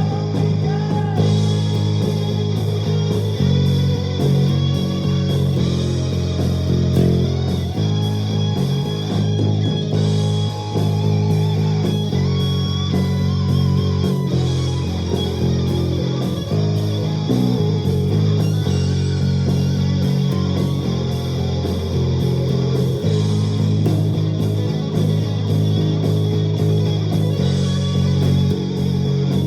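Luxars S-KB20 travel mini electric bass played, a plucked bass line of sustained low notes over a rock backing track with a steady drum beat.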